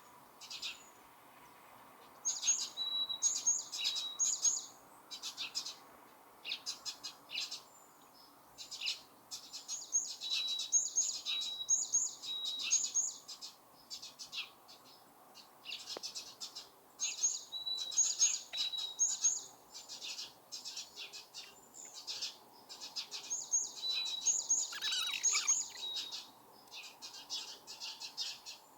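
Small songbirds singing: quick, high chirping phrases that come in dense clusters every several seconds, with scattered single chirps between, over faint outdoor background noise.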